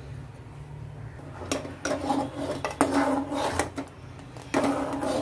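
Metal spoon scraping and knocking against the sides and bottom of a metal pot while thick milk is stirred, in a run of irregular strokes starting about a second and a half in.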